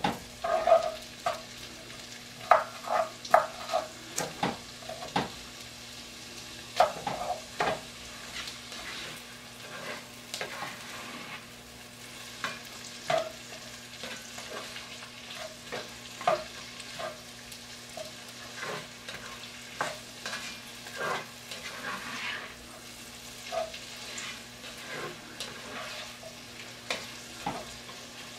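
Chopped onion, celery and carrots sizzling softly as they sauté in a cast-iron Dutch oven, with a spoon stirring them and clacking and scraping against the pot in irregular strokes, loudest in the first few seconds. The vegetables are being cooked until soft.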